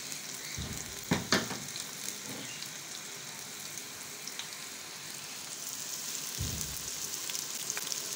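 Sliced onions sizzling in hot oil in a metal pot, with two sharp knocks about a second in.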